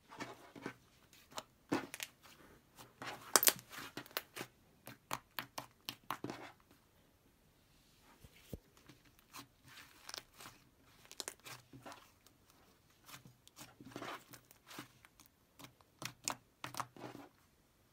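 Butter slime made from Model Magic clay being stretched, pressed and kneaded by hand close to the microphone, giving irregular sticky clicks and crackles as it pulls and folds. There is a quieter spell a little before halfway.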